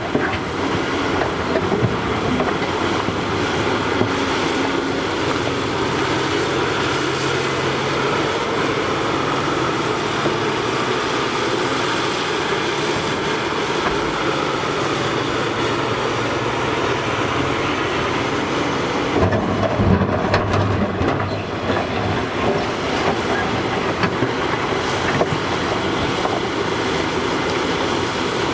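Caterpillar 6015B hydraulic mining excavator at work: its diesel engine and hydraulics running steadily under load as the bucket digs rock and dirt and swings to load a haul truck. A louder stretch of knocks and clatter comes about two-thirds of the way through.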